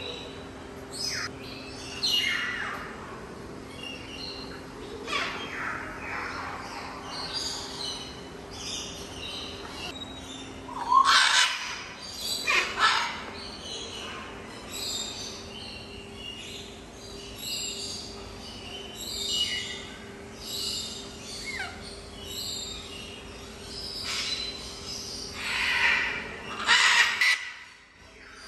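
Macaws squawking and calling again and again. The loudest harsh calls come about eleven seconds in, again two seconds later, and near the end, over a steady low hum.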